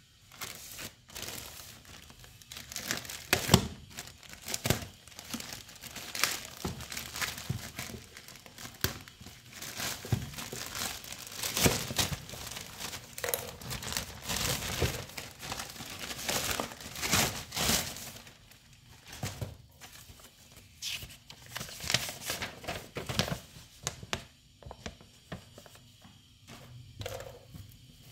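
White plastic courier mailer crinkling and tearing as it is ripped open by hand, with irregular crackles and rustles. The sound thins out and gets quieter near the end as the shrink-wrapped box inside is pulled out.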